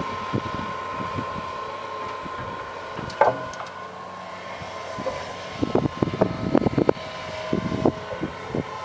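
John Deere 230C LC hydraulic excavator working at a distance: a steady engine drone with a high whine, and knocks and clanks from the bucket and arm as it digs and swings. A sharp clang comes about three seconds in, and a cluster of clanks follows in the second half.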